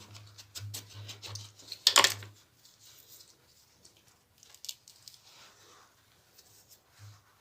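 Lemons being cut and handled while making preserved lemons: scattered soft clicks and rustles, with one sharp knock about two seconds in.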